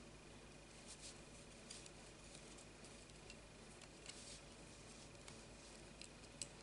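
Faint rustling of thread and cord being drawn through crocheted stitches, with scattered light ticks, as a needle sews the crochet cover over a metal spring clasp. The sharpest tick comes near the end.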